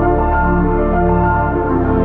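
Soft ambient background music with sustained synthesizer-like tones; the bass shifts to a new chord about one and a half seconds in.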